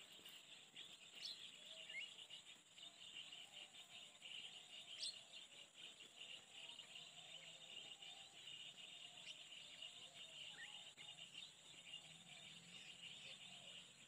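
Faint open-field ambience: a steady, high insect chorus, with a few short bird chirps scattered through it.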